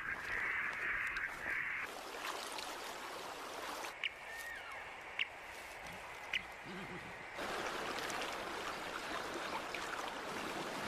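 A radio-tracking receiver beeping: short high pips about a second apart from a tagged platypus's transmitter, over hiss. From about seven seconds in, the steady rush of a fast-flowing river takes over.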